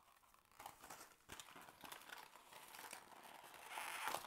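Faint crinkling and rustling of a paper Christmas cracker's torn cardboard tube and wrapping being handled as it is opened, a little louder near the end.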